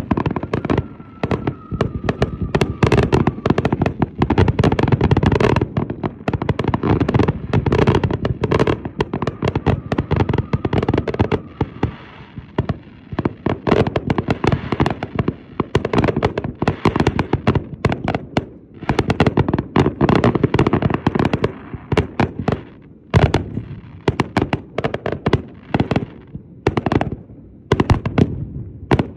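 Fireworks display: a rapid, continuous barrage of aerial shells launching and bursting, with crackling and overlapping bangs. The barrage thins a little in the second half, with a few louder single booms standing out.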